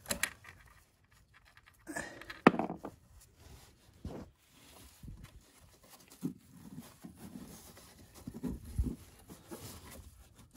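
Scattered knocks, scrapes and rustles from a gloved hand groping inside a snowmobile's opened chain case for a nut behind the bolt, with the sharpest clack about two and a half seconds in.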